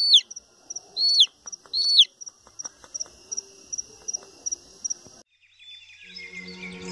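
A chick peeping: a few loud, high calls in the first two seconds, each rising and then dropping sharply. Under them a night insect chirps steadily at about three chirps a second. Everything cuts off abruptly about five seconds in.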